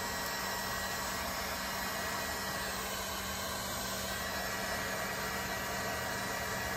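Heat gun running steadily, a constant rushing blow with a low hum under it, warming fresh epoxy so it levels out flat.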